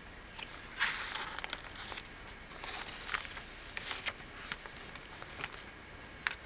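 Paper rustling and soft handling noises as the tea-dyed pages and a paper tag of a handmade journal are lifted and turned, with a louder rustle about a second in.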